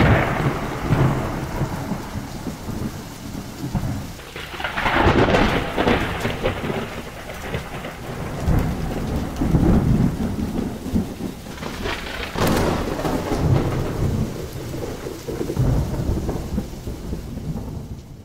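Thunderstorm: steady rain falling with thunder rumbling through it. Louder rolls of thunder come right at the start, about four and a half seconds in, and about twelve seconds in.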